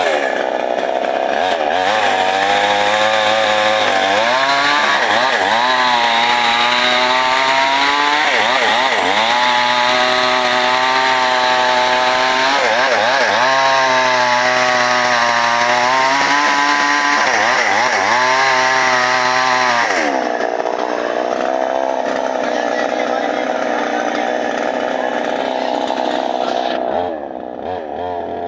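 Chainsaw running at high speed, its engine pitch repeatedly dipping and climbing back. About two-thirds of the way through it settles to a lower, steadier note, and it gets quieter near the end.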